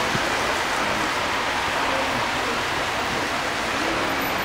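Steady hiss of rain falling on wet pavement, at an even level throughout.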